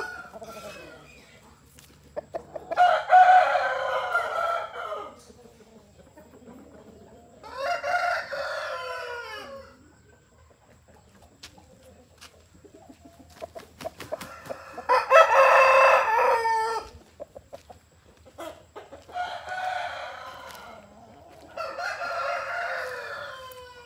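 Aseel roosters crowing five times in turn, each crow about two seconds long. The crows differ in loudness, the loudest coming about three and fifteen seconds in.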